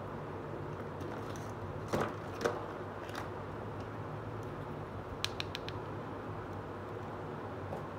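Small plastic toy pieces clicking and tapping as they are handled: two clicks about two seconds in, then a quick run of light ticks around five seconds in as a plastic corn cob meets a small plastic basket. A steady low hum runs underneath.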